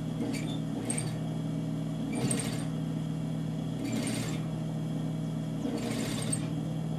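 Sewing machine stitching a narrow turned hem in about five short bursts over a steady motor hum.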